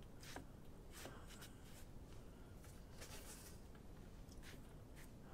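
Near silence, with a few faint, short scratchy strokes of a squeezed-dry paintbrush rubbing across rough watercolour paper.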